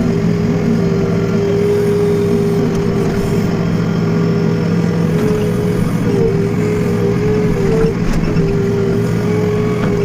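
JCB 3DX backhoe loader's diesel engine running steadily, with a continuous hum that wavers slightly in pitch.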